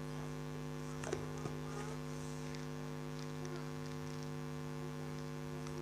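Steady electrical mains hum with several even overtones, with a couple of faint clicks about a second in.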